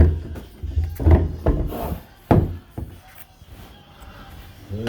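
Heavy wooden closet doors being lifted out and handled: several knocks and thumps of wood in the first half, the loudest about two seconds in, then quieter rubbing.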